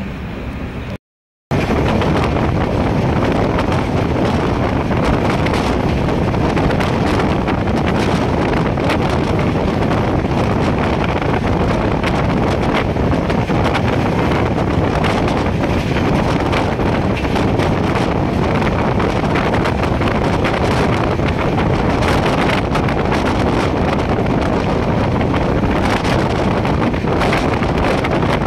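Loud, steady wind buffeting the microphone on a moving train, over the train's running rumble. The sound drops out for a moment about a second in.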